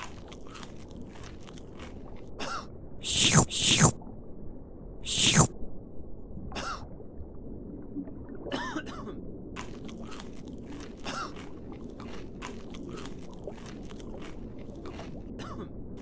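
Dubbed comic sound effects over a steady underwater ambience: a person's coughs, two close together a little after three seconds in and another at about five seconds, then chewing and munching noises with many small crunchy clicks through the rest.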